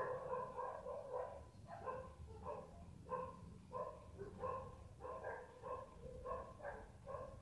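Faint repeated animal calls in the background, short ones at about three a second, with a brief pause near the start.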